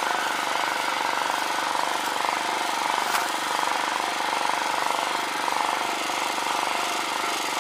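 Diesel walk-behind tractor engine running steadily under way, with a fast, even firing rhythm.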